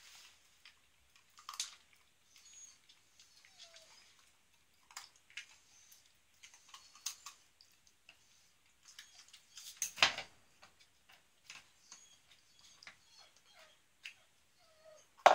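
Plastic cones on a wooden dog puzzle board knocking and clicking as a Dalmatian puppy noses among them, in scattered light taps, with a louder clatter about ten seconds in.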